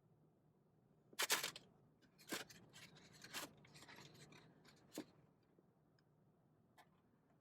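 Rustling, crinkling and scraping of takeout food packaging being handled in short bursts, the loudest about a second in, then a sharp click about five seconds in.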